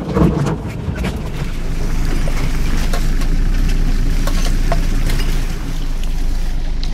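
Off-road 4x4 driving along a forest track: a steady low engine and drivetrain rumble, with scattered short knocks and clicks as it goes over the rough ground.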